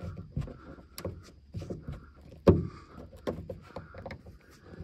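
Flat-blade screwdriver prying at the plastic lens of a 2007 Honda Civic's dome light: a series of small plastic clicks and taps, the sharpest about two and a half seconds in.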